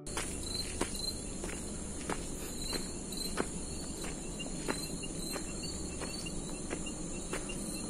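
Crickets and other insects chirring steadily in a high band, with footsteps on a footbridge walkway at about one and a half steps a second.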